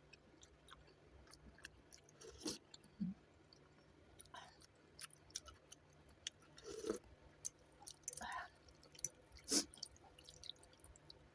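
Close-up eating sounds of a person eating noodles with vegetables and pork: quiet chewing and small mouth clicks, broken by a few short, louder bursts.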